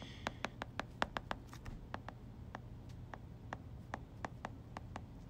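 Stylus tip tapping and ticking on a tablet screen as words are handwritten: a string of light, irregular clicks, thickest in the first second and a half.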